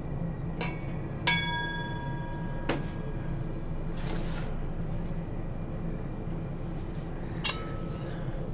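Metal kitchenware clinking: about four separate clinks of a bowl and a spoon against a brass cooking pot and a stainless steel bowl, several ringing briefly. A short hiss comes about four seconds in, over a steady low hum.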